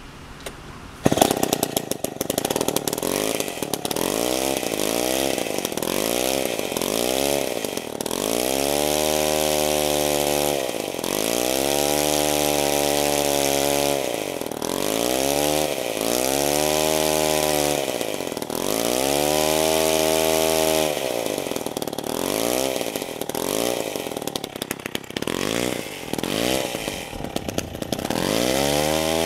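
PM Rocket K1 chainsaw's 90 cc two-stroke engine starting about a second in, then revved over and over with the chain free: short blips at first, longer revs of about two seconds each in the middle, quicker blips again near the end, dropping back to idle between them.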